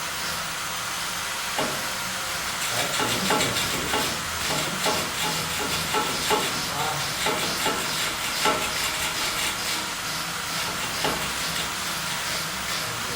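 A steady hiss with a run of irregular light clicks and knocks. The clicks start about a second and a half in and thin out near the end.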